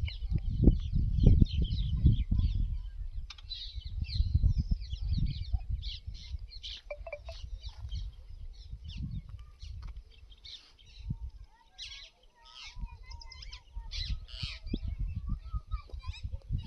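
Many birds chirping and calling together in quick, overlapping notes. Underneath runs a low rumbling noise that swells and fades, strongest in the first few seconds and again near the end.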